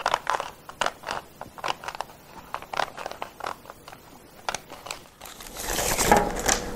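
Paper, tape and scissors being handled at a craft table: scattered short rustles and clicks. About five seconds in, a steady hiss comes in.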